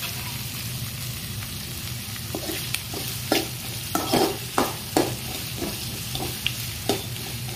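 Sliced onions sizzling in hot oil in a kadai. From about two seconds in, a steel spoon scrapes and clinks against the pan in short strokes as the onions are stirred.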